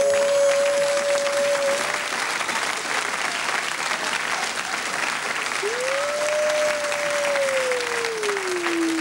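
Audience applauding, with a man's long wordless vocal cry over it: one held note that ends about two seconds in, then a second cry from just past halfway that rises briefly and slowly falls in pitch. The cries are a comic imitation of intimidating karate noises.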